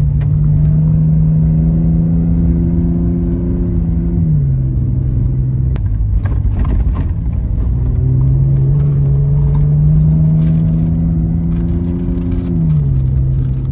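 Pickup truck driving fast on a desert dirt track, heard from inside the cab. The engine note climbs slowly and drops suddenly about four seconds in, then does the same near the end. Under it runs a steady rumble of tyres on dirt, with scattered rattles and knocks from bumps.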